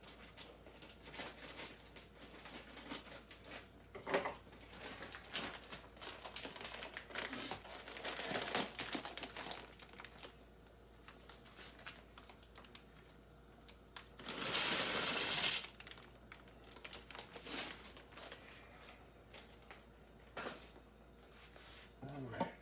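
Plastic bag of dry egg noodles crinkling as it is handled and opened, then a louder rush lasting about a second and a half as the noodles slide out of the bag into the pot of soup, followed by a few lighter crinkles.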